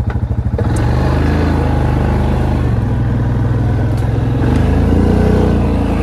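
ATV (quad bike) engine going from a pulsing idle to steady running under throttle about a second in, with a further rise in revs around four to five seconds in, as the quad drives on.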